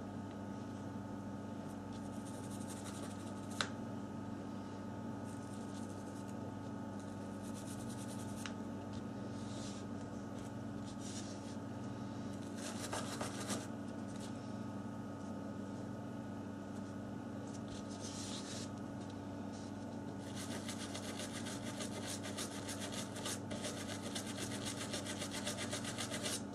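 A small brush scrubbing a water-damaged phone circuit board to clear corrosion, in short bouts of rapid strokes and a longer run near the end, over a steady electrical hum. A single click comes a few seconds in.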